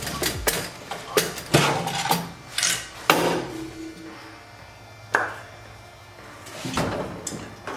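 Scattered metal clinks and sharp knocks from hand tools and exhaust parts as a turbocharger downpipe is unbolted and removed, about half a dozen in all, with a quieter stretch in the middle.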